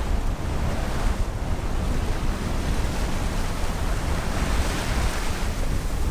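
Strong wind buffeting the microphone over rushing seawater as a sailboat sails in high winds, with a louder wash of water swelling about two-thirds of the way through.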